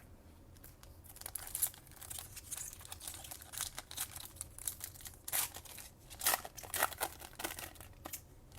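Plastic foil wrapper of a trading card pack being torn open and crinkled, a run of irregular crackling rips and rustles.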